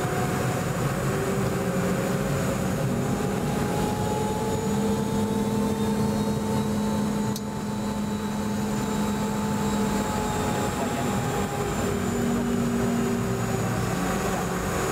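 Boeing 717-200's rear-mounted Rolls-Royce BR715 turbofan engines running at taxi power, heard from inside the cabin: a steady roar with several whining tones that drift slightly in pitch. A single sharp click about halfway through.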